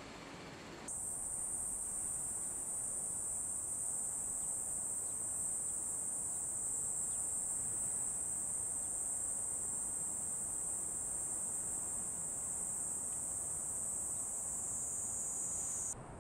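A steady, high-pitched insect chorus that switches on abruptly about a second in and cuts off suddenly near the end.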